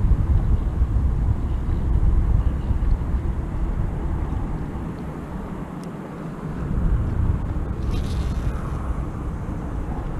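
Wind buffeting the microphone of a camera on an open kayak: a loud, uneven low rumble that eases off toward the end, with a short scrape about eight seconds in and a faint click or two.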